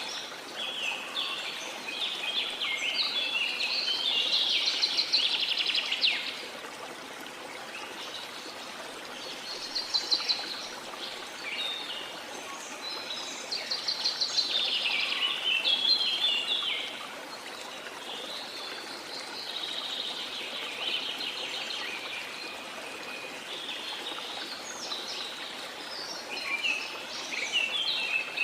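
Rain forest birds singing in repeated bouts of quick chirps and trills over the steady rush of a flowing river.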